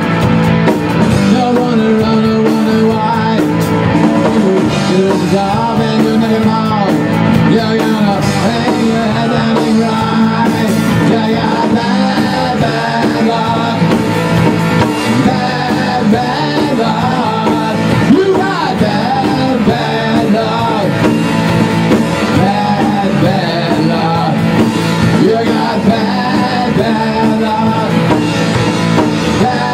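A rock band playing live: electric guitar, bass guitar and drum kit, with a singer over them.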